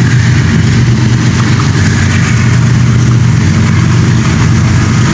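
Diesel locomotive engine of an approaching train running with a steady low hum.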